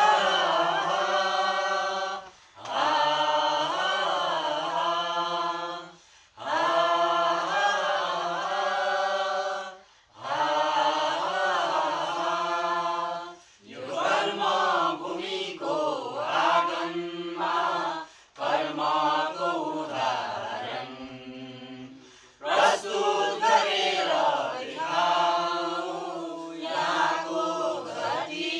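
A mixed group of men and women singing a Nepali song together in unison, unaccompanied. The singing comes in phrases of a few seconds, with brief breaks for breath between them.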